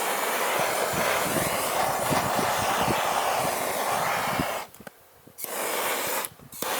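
Handheld gas torch hissing as it burns small hive beetles, with light crackling. It runs steadily for about four and a half seconds, cuts off, then comes on again in two short bursts.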